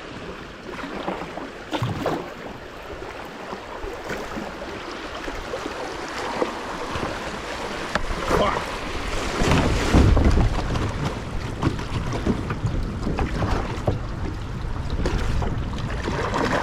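Kayak running down a swollen creek: rushing water with splashes and paddle strokes, getting louder as it goes. About two-thirds of the way through, a strong low rumble swells up and dies down.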